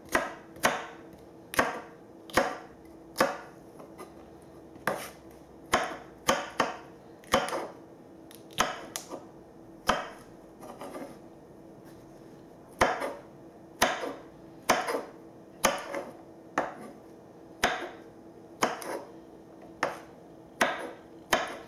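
Chef's knife chopping okra on a wooden cutting board: sharp knocks of the blade on the wood, about one a second, with two short pauses.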